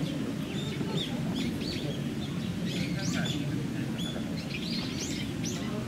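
Small birds chirping in a string of short, high calls over a steady low background murmur.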